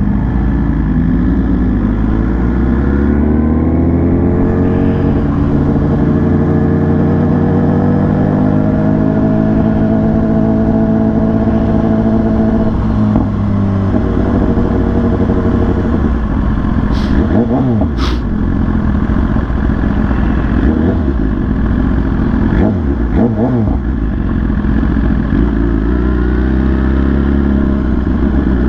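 A vehicle engine running hard at speed, its pitch climbing over several seconds and dropping back, again and again, as it accelerates and eases off. Two sharp clicks come about two-thirds of the way through.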